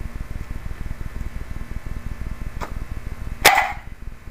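Wind rumbling on the microphone, with one short, loud, sharp sound about three and a half seconds in.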